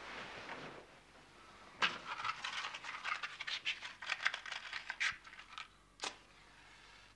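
Hands fumbling with a matchbox in the dark to light a candle: a quick run of small rattles, clicks and scrapes, then one sharp scrape near the end.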